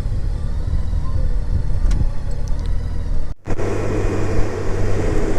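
2016 Honda Gold Wing's flat-six engine running steadily under way, with road and wind noise. The sound cuts out for a moment about three and a half seconds in, then resumes with more wind and road hiss.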